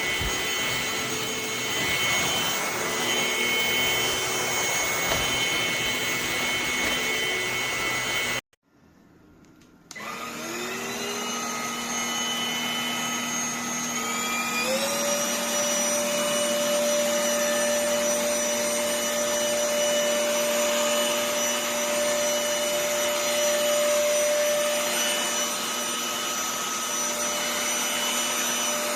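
Tdyon cordless stick vacuum cleaner's motor running with a steady whine. It cuts out abruptly, and after a second and a half of near silence it starts again, its whine rising as the motor spins up. A few seconds later it steps up to a higher speed and runs on steadily.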